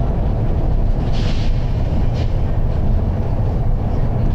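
Volvo B9TL double-decker bus's nine-litre six-cylinder diesel engine running under way, heard from the upper deck as a steady loud rumble. Two short hisses come through, the first about a second in and a briefer one a moment later.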